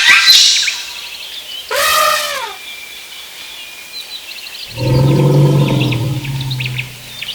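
Wild animal calls. A short call with a rise-and-fall pitch comes about two seconds in, then a longer, low, steady call from around the middle until near the end, with faint high chirps of birds or insects behind.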